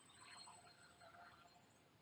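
Near silence: faint background with thin, high, steady tones and a few soft chirps.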